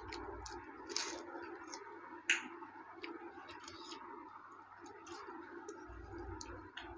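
Quiet eating sounds: fingers working rice, curry and flatbread on ceramic plates, with chewing and a scatter of small clicks and one sharper click about two seconds in, over a faint steady hum.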